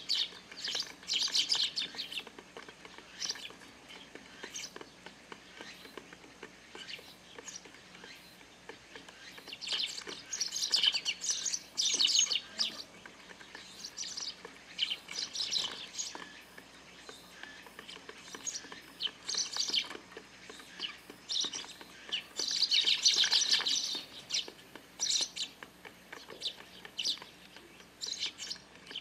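A flock of Eurasian tree sparrows chirping, in loud flurries at the start, near the middle and about three-quarters through, with scattered single chirps between.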